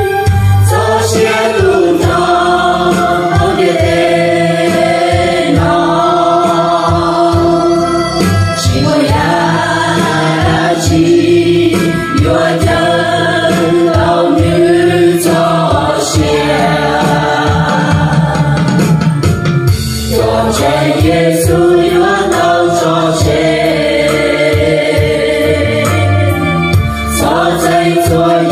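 A group singing a slow song together in long held phrases over instrumental backing with a steady beat.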